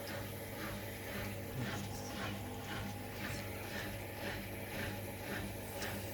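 Hoover Nextra and Beko WDER washing machines running a 1400 rpm final spin: a steady motor hum with a regular light knocking about three times a second.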